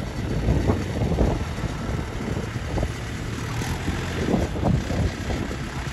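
Swaraj 744 XT tractor's diesel engine running while its trolley is tipped, with wind buffeting the microphone.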